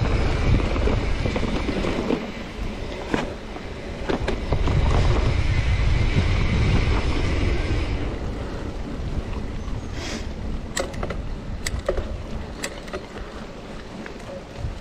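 Wind buffeting the microphone and tyre noise from a mountain bike ridden fast over leaf-covered dirt singletrack. About eight seconds in it becomes quieter, and sharp clicks and rattles from the bike follow.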